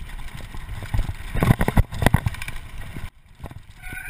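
Mountain bike clattering and thudding over a rough dirt trail at speed, with wind buffeting the camera's microphone; the noise stops suddenly about three seconds in.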